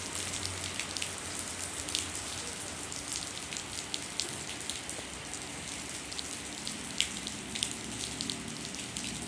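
Steady rain falling on a wet concrete yard: a constant hiss with many scattered sharp drop ticks.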